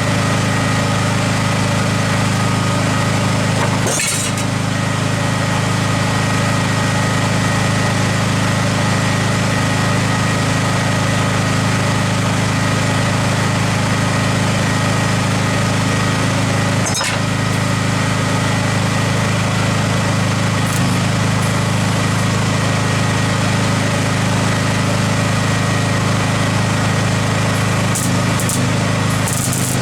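Electric welding, with the arc crackling and hissing steadily over a low electrical hum and a couple of brief breaks between runs.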